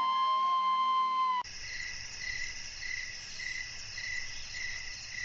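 A flute melody ends on a held note that cuts off abruptly; then crickets chirp steadily as night ambience, with a pulsing chirp about twice a second.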